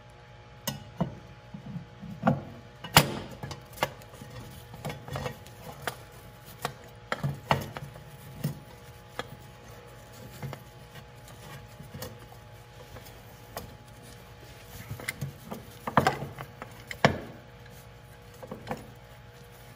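Irregular clicks and knocks of a gloved hand turning and seating a metal hydraulic oil filter canister by hand, loudest about three seconds in and again near the end, over a faint steady low hum.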